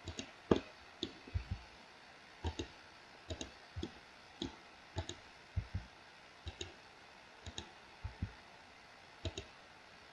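Computer mouse buttons and keyboard keys clicking at irregular intervals, often as quick pairs of clicks, while bones are rotated in 3D software.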